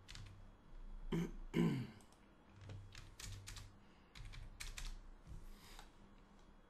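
Computer keyboard and mouse clicking in short bursts of typing. About a second in come two brief low vocal sounds that fall in pitch.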